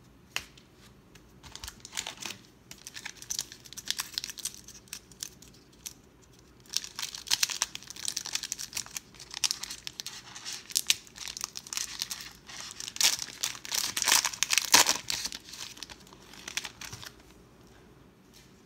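Crinkly wrapper of a 1992 Pro Set NFL football card pack crinkling and tearing as it is pulled open by hand and the cards are slid out. The crinkling is densest and loudest in the middle and dies down near the end.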